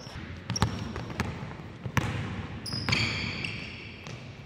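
Basketball dribbled on a hardwood gym floor, about five bounces. Sneakers squeak on the court about two-thirds of the way through.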